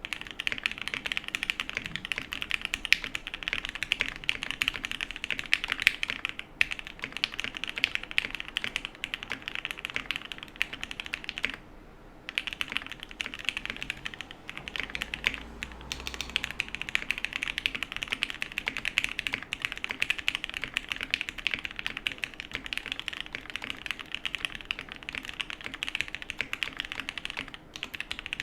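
Continuous fast typing on a Frog TKL custom mechanical keyboard with lubed, filmed Gateron Black Ink linear switches, a full aluminium plate, plate and case foam, and GMK keycaps: a dense run of key clacks with a few brief pauses, the longest about twelve seconds in.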